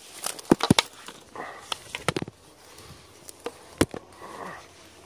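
Footsteps pushing through dense undergrowth: irregular sharp cracks of twigs snapping, the loudest clustered about half a second in and another near four seconds, with swishes of leaves and branches brushing past in between.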